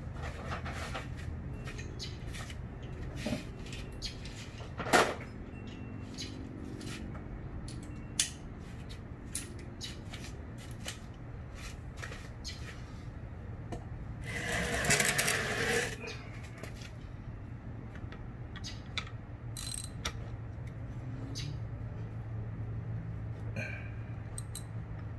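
Scattered metallic clicks and clinks of hand tools and parts being handled on an engine cylinder head, with one sharp knock about five seconds in and a rushing noise lasting about a second and a half just past the middle, over a steady low hum.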